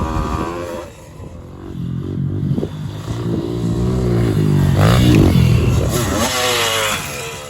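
Pit bike engine revving up and down as it is ridden. It drops back about a second in, builds to its loudest about five seconds in, then eases off.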